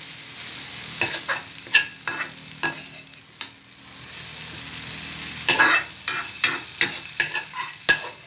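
Sliced white onions sizzling as they are sautéed in a metal wok, with a metal spatula scraping and clicking against the pan as they are stirred, sharpest and most frequent in the second half.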